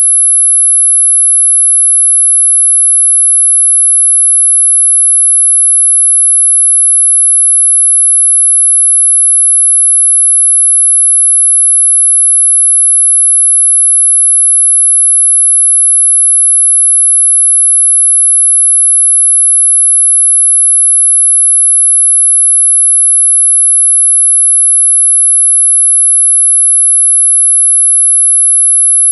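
A single pure electronic sine tone at about 11 kHz, very high-pitched, loud and perfectly steady: a tinnitus-masking tone.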